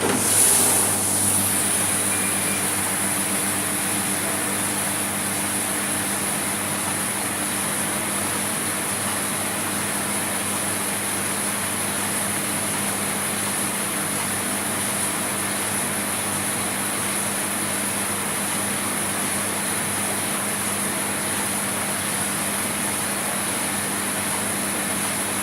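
Dolphin dishwashing machine running a wash cycle: its pump motor starts abruptly and then runs steadily with a hum under the even hiss of water spraying inside the machine.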